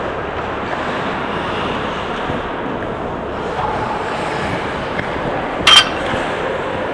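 Ice hockey play on a rink: a steady noisy wash of skating and play, with one sharp, ringing clink just under six seconds in.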